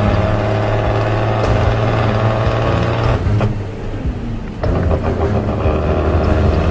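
Heavy diesel vehicle engine running with a steady low drone, easing off and breaking up about three seconds in, then picking up again about four and a half seconds in.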